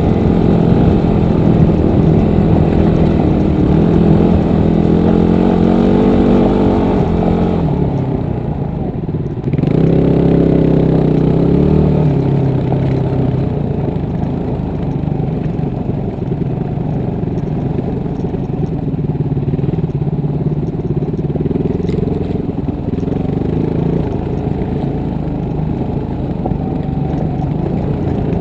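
Motorcycle engine running on a rough dirt trail, pitch rising a little before easing off about seven seconds in. It picks up again about two seconds later, then settles to a steady lower pitch.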